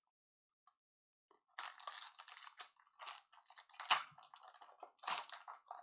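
Trading cards and their packaging being handled: short, irregular crinkling and rustling, starting about a second and a half in.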